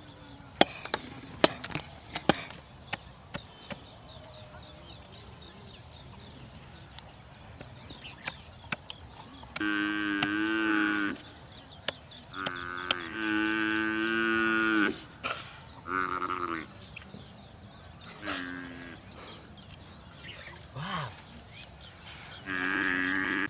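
Cattle mooing: several long calls, each held at a steady pitch, one after another over the second half. A few sharp knocks come in the first couple of seconds.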